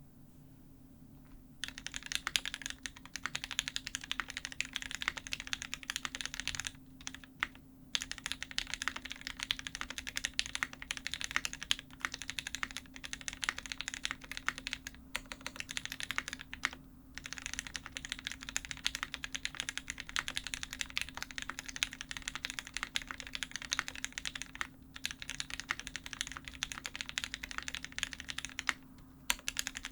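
Fast continuous typing on an F1-8X aluminium-plated mechanical keyboard with lubed, filmed Gateron Ink Black linear switches and GMK Honeywell ABS keycaps. It starts about a second and a half in and has a few brief pauses.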